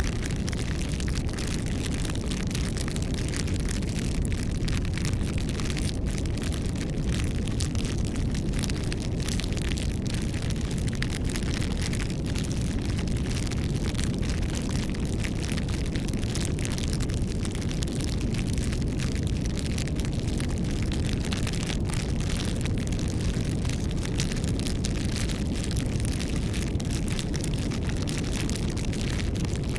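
Campfire burning steadily, with a constant low rumble of flame and many small, irregular crackles and pops from the wood.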